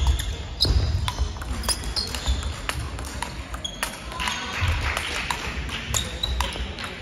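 Large-ball table tennis rally: the ball clicking sharply off the rackets and the table, one hit after another at rally pace.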